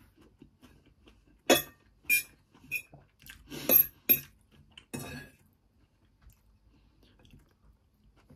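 Metal fork clinking and scraping against the food container while food is scooped up: about half a dozen sharp clinks, a few ringing briefly.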